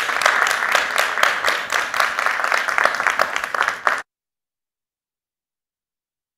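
Auditorium audience applauding, a dense crowd of clapping hands. The applause cuts off abruptly about four seconds in, leaving dead silence.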